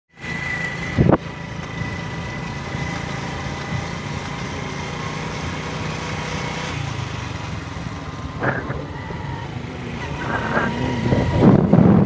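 Honda motorcycle engine running steadily while riding. There is a single knock about a second in, and the engine and wind noise grow louder near the end.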